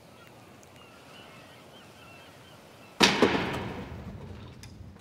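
Faint bird calls over a low hiss, then about three seconds in a sudden loud bang, struck twice in quick succession, dying away over a second or so.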